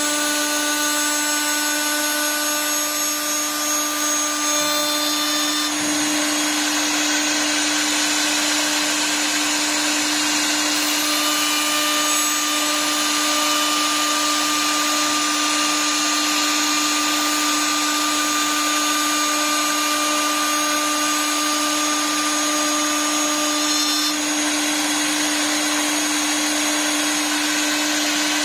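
Milling spindle of a CNC wood lathe running at speed under an automatic program, a steady motor whine over a dense hiss of its cutter working the wood. Fainter higher tones drop out and come back about six, eleven and twenty-four seconds in as the cut changes.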